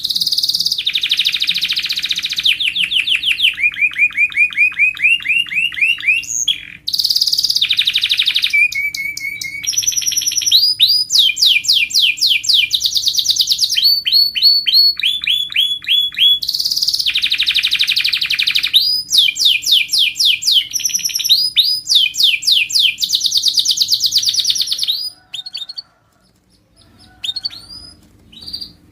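Domestic canary singing a long, loud song of rapid trills: runs of fast repeated notes, some gliding up or down, changing to a new phrase every second or two. The song breaks off about 25 seconds in, leaving a few scattered quieter notes. A faint steady hum runs underneath.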